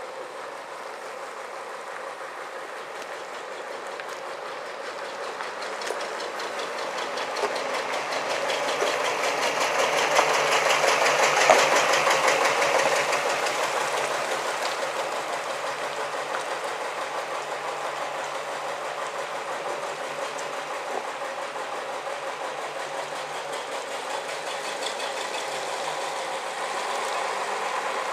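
Vintage Bristol single-deck bus's diesel engine running as the bus passes close by and pulls away. It builds to its loudest as the bus goes past, about eleven or twelve seconds in, then fades steadily as it drives off.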